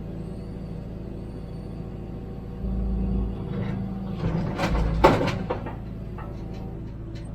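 Hitachi ZAXIS 210W wheeled excavator's diesel engine running steadily, heard from inside the cab. Its low hum grows louder a little under half way through, and a cluster of clanks and knocks follows, the loudest a single sharp bang about two-thirds through.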